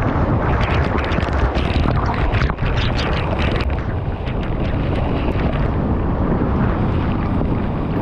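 Loud, steady rush of a waterfall pouring down right onto the camera and into the pool, with water spattering hard against the camera through the first few seconds, then a smoother roar of churning water at the base of the falls.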